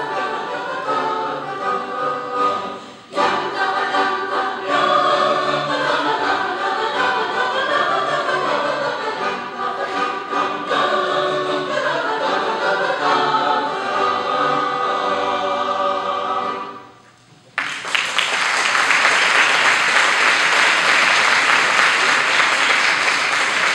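Choir singing a cappella, with a short break about three seconds in. The song ends about seventeen seconds in, and an audience bursts into steady applause.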